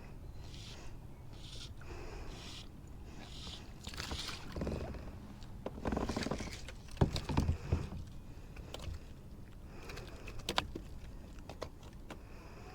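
Knocks and scrapes of gear against a kayak, loudest in a cluster about halfway through, after soft swishing sounds about once a second, over a low rumble.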